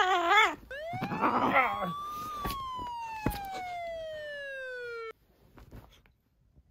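A cat's wavering growling yowl, a warning that it has had enough of being patted, stops under a second in. Then a siren-like warning sound effect plays: one tone that rises, then slides slowly down and cuts off abruptly about five seconds in.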